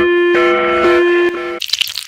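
Ukrainian emergency alert tone: a steady, buzzy electronic tone sounding in long pulses with a short break just after the start, cutting off about a second and a half in, followed by a brief noise.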